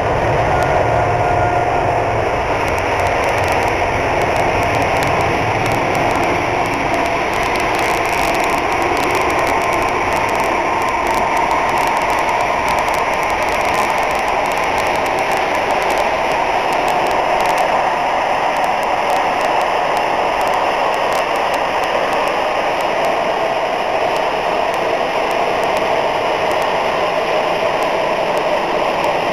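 Jet airliner engines running: a steady, loud noise with a whine that slowly drops in pitch while the deep rumble fades.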